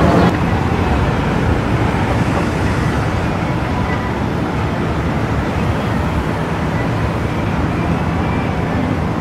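Steady city traffic noise from cars, taxis and buses driving along a busy multi-lane street, an even low hum of engines and tyres.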